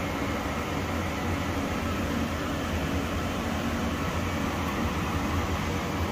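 Steady whirring hum of a running fan, with a low drone underneath.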